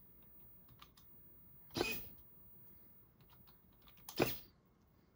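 A 35 kg hobby servo at the second joint of a 3D-printed robot arm whirs in two short bursts about two and a half seconds apart as it swings the arm to new angles. A few faint clicks come between the bursts.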